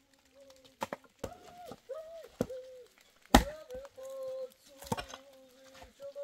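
A series of sharp chopping strikes, about half a dozen at uneven intervals, the loudest a little past the middle. A wavering pitched sound carries on between the strikes.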